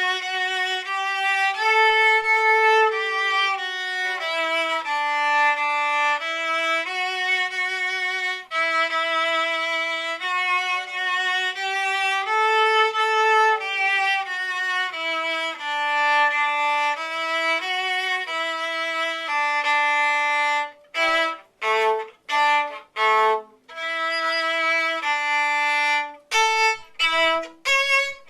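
Solo viola playing a melody in D major at a slow practice tempo: sustained bowed notes with vibrato. About two-thirds of the way through it turns to short, separated strokes.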